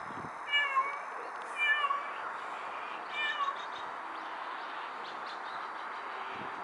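A cat meowing three times, short calls that each fall in pitch, about a second apart.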